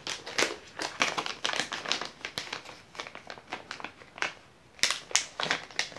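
Packaging crinkling and rustling as it is handled: a dense run of irregular crackles, with a few louder ones near the end.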